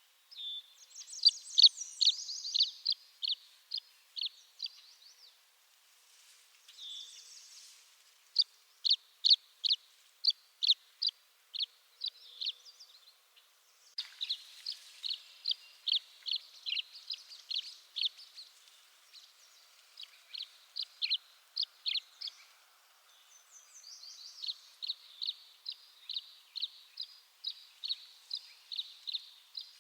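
Tree swallow calling: bouts of short, sharp chirps repeated two to three a second, several bouts opening with a higher twitter, with brief pauses between bouts.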